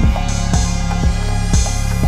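Electronic background music with a steady drum beat of about two thumps a second over sustained bass.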